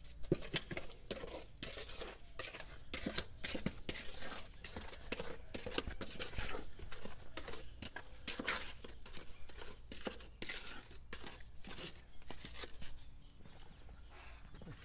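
Irregular scrapes, crackles and light knocks from hands-on work, with no steady machine running.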